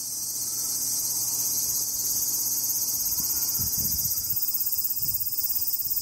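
Cicadas calling in a steady, high-pitched buzz that turns into a fast pulsing about four seconds in. A few soft low thumps come around the middle.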